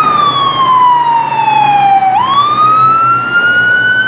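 Ambulance siren wailing loudly: one tone slides slowly down for about two seconds, then swoops back up and climbs slowly again.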